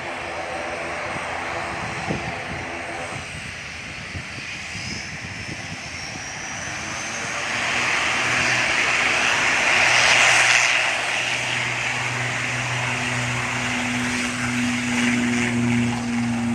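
Twin-turboprop ATR 72 airliner rolling along the runway with its engines and propellers at power. The noise builds to its loudest about ten seconds in as the aircraft passes, then settles into a steady low propeller drone with a higher tone above it.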